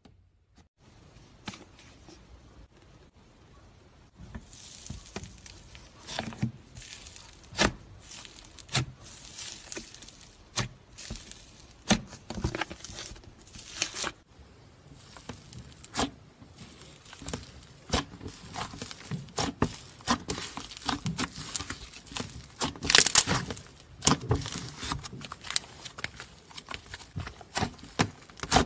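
Slime being played with: irregular crackles and pops as it is pressed and pulled apart. The crackling starts about four seconds in, and the loudest burst comes about three-quarters of the way through.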